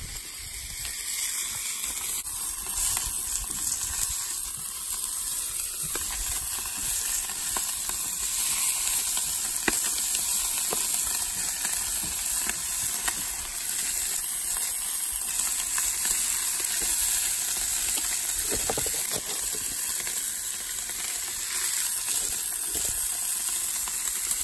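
Steaks and sausage patties sizzling in a hot cast-iron frying pan: a steady frying hiss with faint crackles, louder from about a second in as more meat goes into the pan.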